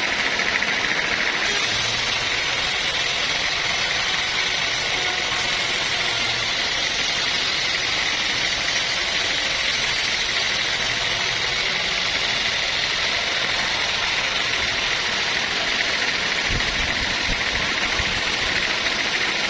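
Sawmill machinery running steadily, with an even mechanical noise. A higher hiss joins about a second and a half in and drops away around twelve seconds.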